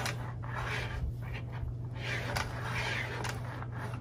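Faint, irregular scraping and rubbing as the retractable power cord is drawn out of the base station of a Panasonic cordless steam iron, over a low steady hum.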